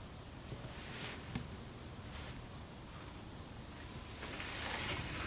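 Insect chirping steadily in short high-pitched pulses, about three a second, over faint outdoor background; a brief rustle of noise rises about four seconds in.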